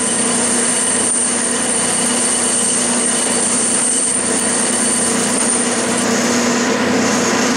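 Clausing metal lathe running steadily, its tool cutting the V-groove of a spinning pulley with a steady hum. A high, thin whine stops about six seconds in.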